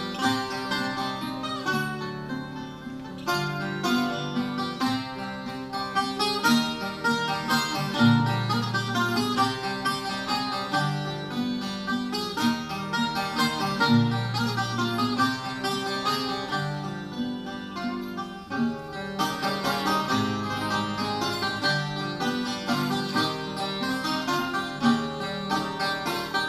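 A Portuguese guitar and a classical guitar playing an instrumental piece together: a quick plucked melody over deeper bass notes on the classical guitar.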